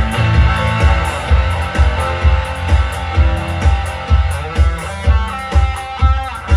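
Live band music through a large PA speaker system: electric guitar and keyboards playing together over a steady kick-drum beat about twice a second.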